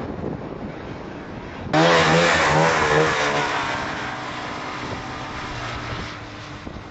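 A snowmobile engine comes in suddenly and loud about two seconds in, revving with a wavering pitch, then slowly fades while still running. Before it there is only a windy rush.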